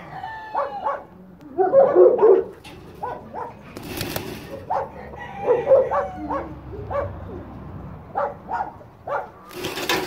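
A chicken clucking in short, repeated calls that come in clusters. A brief rustle about four seconds in, and a longer rustle near the end.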